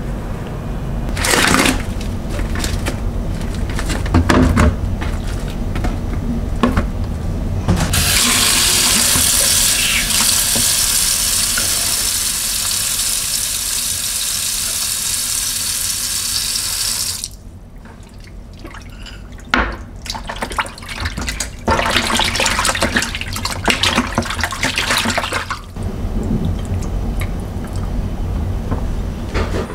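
Tap water running steadily into a plastic bowl of raw pork for about nine seconds, then stopping. Irregular splashing and handling noises follow as the meat is washed.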